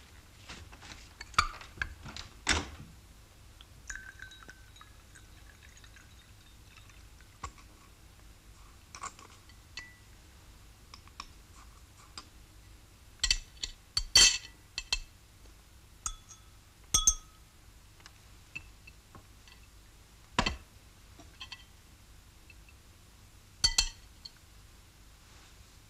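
Glassware and dishes clinking on a table during a meal: scattered sharp clinks and taps with a short ring, louder in a cluster about halfway through and again near the end.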